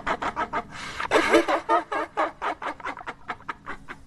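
Evil spirit laugh sound effect: a rapid cackling laugh of short pulses, louder around a second in, then quickening and fading toward the end.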